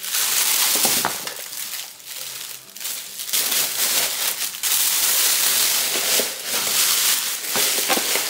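Thin plastic bag crinkling and rustling loudly as shoes are wrapped in it and handled, in uneven bursts with brief pauses.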